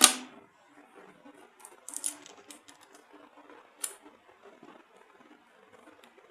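A cardboard product box being handled and opened by hand: one sharp snap at the start, then a few light clicks and taps about two seconds in and again near four seconds.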